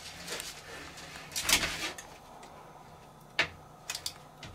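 Handling noises as a monitor lizard clambers off a shelf onto a man's arm: a brief rustling scrape about one and a half seconds in, a sharp click near three and a half seconds, then a few light clicks.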